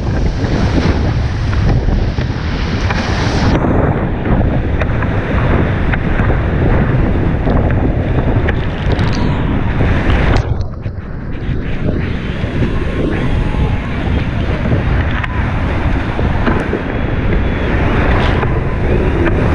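Whitewater rushing and splashing hard around a kayak running a steep creek rapid, loud and continuous. The sound dulls for a moment a little past halfway.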